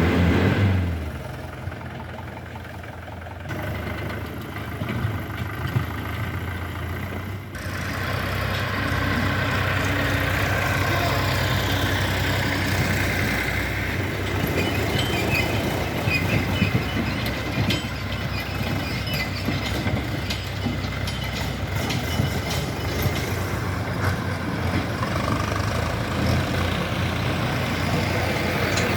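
Heavy diesel engines of a backhoe loader and tractors running at work, a steady low hum with occasional clanks and rattles; the sound shifts abruptly a few times as the shots change.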